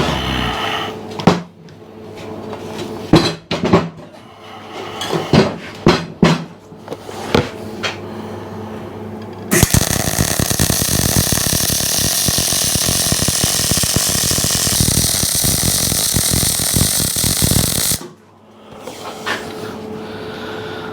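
Steel pieces knocking and clanking as they are set in place, then a welding arc crackling steadily for about eight seconds and stopping abruptly as the forge's steel back plate is tacked on.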